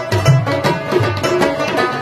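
Rabab playing a fast run of plucked notes over tabla drumming: an instrumental passage of Pashto music.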